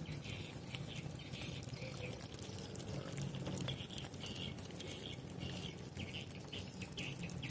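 Several puppies eating cooked rice from a plastic tub: busy chewing, smacking and lapping, with many small clicks, above a steady low hum.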